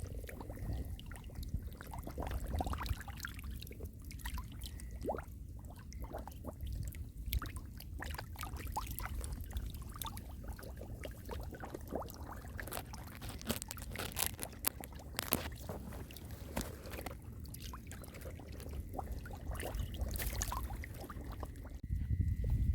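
Shallow muddy water splashing and trickling, with many short, irregular splashes and plops over a steady low rumble.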